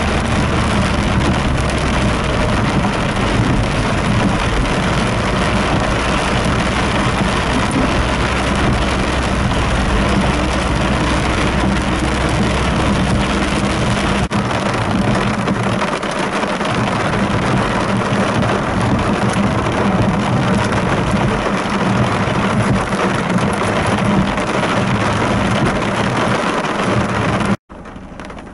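Heavy rain falling on a moving car's roof and windscreen, over the low hum of the car's engine and its tyres on the wet road. Near the end the sound cuts off abruptly and gives way to a much quieter patter of rain.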